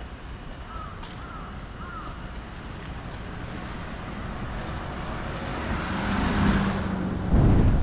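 A motor vehicle passing close on a city street, its engine hum and road noise building to a peak near the end. Three short chirps sound about a second in.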